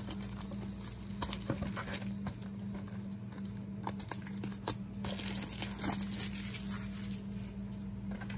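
Plastic shrink wrap being torn and peeled off a trading-card hobby box, crinkling, with scattered sharp crackles.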